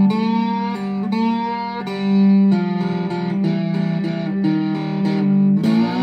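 Intro music: a guitar playing a riff of plucked notes, with a note sliding up in pitch near the start and again near the end.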